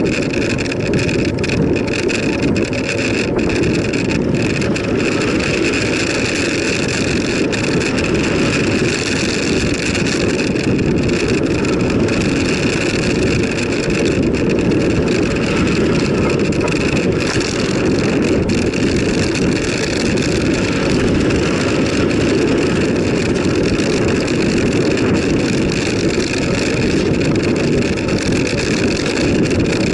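Steady wind rumble on the microphone of a bicycle-mounted camera, mixed with tyre noise from riding along a tarmac road.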